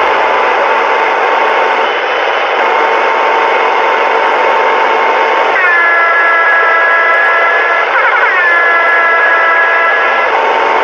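Radio transceiver speaker giving out loud static hiss with steady whistling heterodyne tones from carriers on the band. About five and a half seconds in, several new tones start at once, and a short warbling tone comes near eight seconds.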